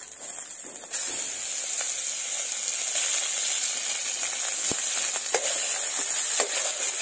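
Pieces of pork fat frying in a dry wok, rendering out their own oil: a steady sizzle with scattered pops and crackles. The sizzle starts abruptly about a second in.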